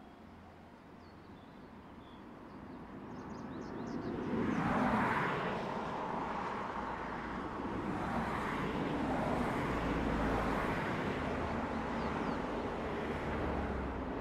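KiHa 40/48-series diesel railcar approaching on the track: its engine and running noise grow louder over the first few seconds, peak about five seconds in, then hold steady as it draws near.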